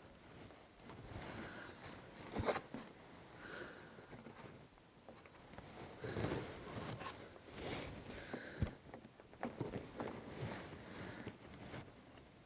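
Faint scraping, rustling and a few small knocks as a small faceplate panel is pushed into and pulled back out of a cut-out in the layout fascia, catching on the edge of the opening.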